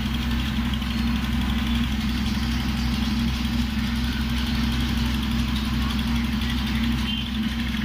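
Engine of the water-pressure horizontal drilling equipment running steadily at an even speed, with a low, unchanging hum.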